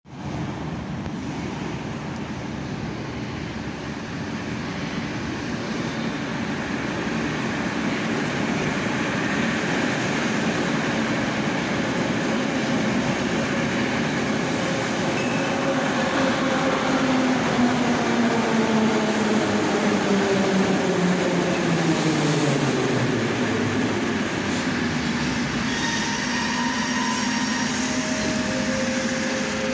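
81-717/714 'Nomernoy' metro train running into a station and braking to a stop, with rumbling wheel and running noise and a whine that falls steadily in pitch as it slows.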